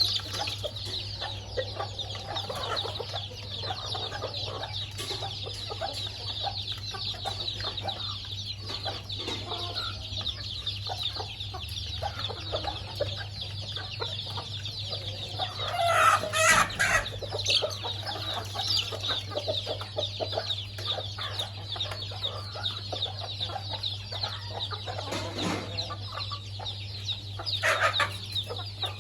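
Chickens clucking and calling as they feed, over a dense, constant high-pitched chatter. A louder call comes about halfway through and another near the end.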